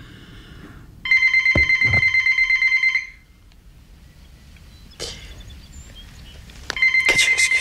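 Telephone bell ringing twice, each ring about two seconds long with a rapid trill, about four seconds apart.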